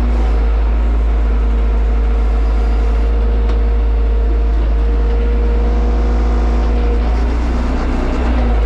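Tractor diesel engine running steadily, heard from inside the cab while driving along a track. A thin steady whine rides over it and stops about seven seconds in.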